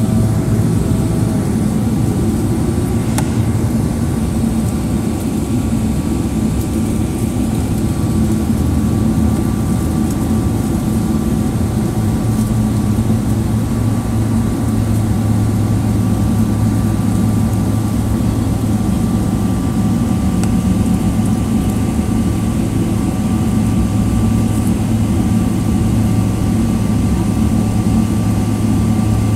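Cabin noise of a Boeing 777-300ER on the ground with its GE90 engines at idle: a steady low drone with a faint steady whine above it, not building up.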